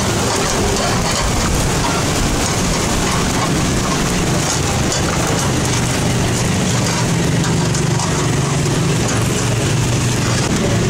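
Busy street noise: a dense, steady hiss with a low engine hum that grows stronger in the second half, and some faint voices.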